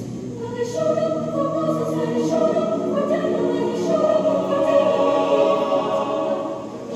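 Mixed choir of men's and women's voices singing long held chords without recognisable words, swelling about a second in and easing off near the end.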